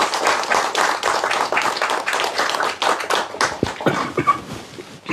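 A small audience applauding: dense hand clapping that thins out and dies away about three and a half seconds in.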